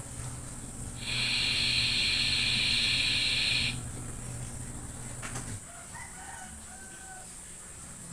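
A loud, steady, high-pitched animal call, about three seconds long, starts about a second in and cuts off sharply. Faint short chirps follow over a low steady hum.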